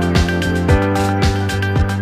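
Background music with a steady beat: electronic-style track with a regular kick drum and sustained pitched notes.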